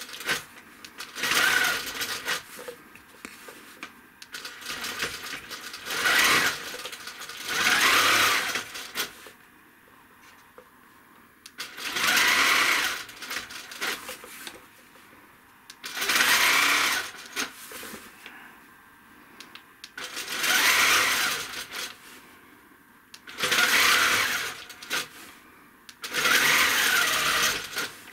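Handi Quilter quilting machine stitching in short runs of a second or two, stopping between them, about eight times over. The machine starts and stops as free-motion feathers are quilted stroke by stroke.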